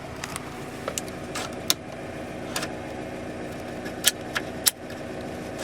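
GAZ Gazelle Business truck engine idling steadily, heard inside the cab, with several sharp clicks scattered through it.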